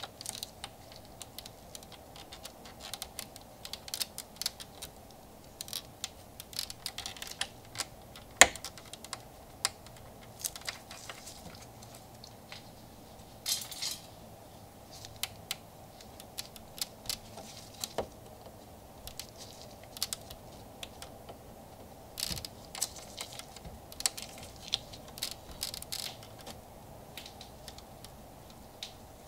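Irregular small plastic clicks and taps of a screwdriver prying at the clips of an Audi Q7's front grille emblem, with one much sharper click about eight seconds in. A faint steady hum sits underneath.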